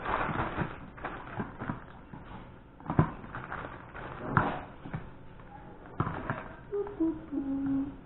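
Kitchen handling sounds: scattered taps and knocks, the sharpest about three, four and a half, and six seconds in, with a brief voice sound near the end.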